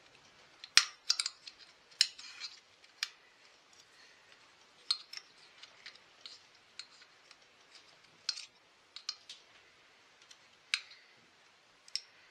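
Irregular sharp metallic clicks, taps and scrapes of a thin hand tool poking and prying at a twisted wire on the choke lever inside a chainsaw housing, about a dozen loud clicks spread over the time with quieter scraping between.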